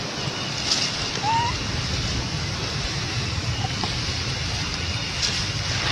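Steady hiss-like outdoor background noise with a few faint ticks, and one brief faint rising squeak about a second and a half in.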